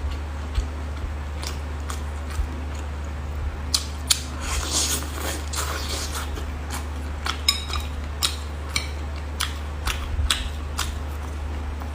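Hands working cooked sea hares, pulling out the cartilage: scattered small clicks and soft wet handling sounds, busiest about four to six seconds in, over a steady low electrical hum.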